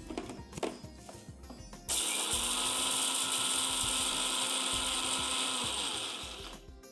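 Indian electric mixer grinder (mixie) running, grinding roasted coriander seeds, toor dal, dry chillies and garlic with water to a coarse paste. It starts about two seconds in after a few faint clicks, runs steadily for about four seconds and winds down near the end.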